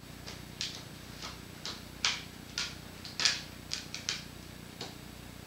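Hands rubbing and pressing Shake Junk grip tape down onto a skateboard deck: about a dozen short, scratchy swipes at uneven intervals.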